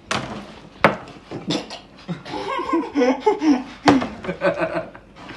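Several men laughing, with three sharp knocks on the table: one at the start, one just under a second in and one about four seconds in.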